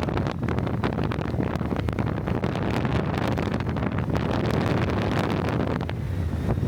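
Strong, gusty wind buffeting the microphone: a dense low rumble with rapid crackles.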